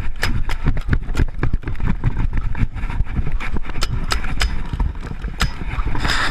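Paintball markers firing: many sharp pops at irregular spacing, several a second, over a steady low rumble.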